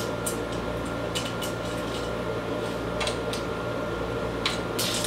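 Loose chainsaw chain (3/8 pitch, .063 gauge) handled on a workbench, its steel links clinking in scattered light clicks, over a steady background hum.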